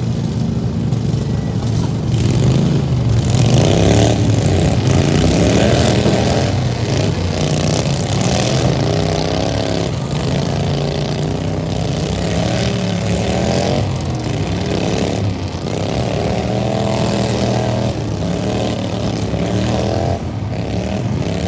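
Several small lawn mower engines running and revving, their pitch rising and falling every second or two over a steady low drone.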